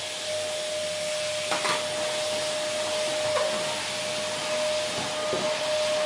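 Vacuum cleaner running steadily: rushing air with a constant motor whine. A few brief knocks sound over it, about a second and a half in, again in the middle and near the end.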